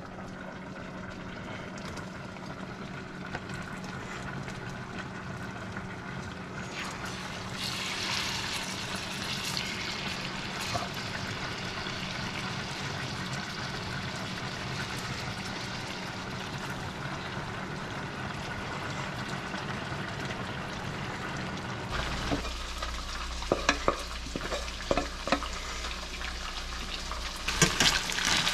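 Tautog fillets sizzling as they fry in butter in a stainless steel skillet, the sizzle growing louder about eight seconds in. Near the end, a spatula clicks and scrapes against the pan several times.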